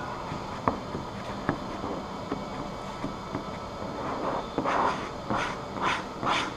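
Hand squeegee rubbing over a vinyl stripe and its transfer masking as the stripe is pressed down and tucked over a body edge: two light clicks in the first two seconds, then quick scraping strokes about twice a second near the end, over a steady background hum.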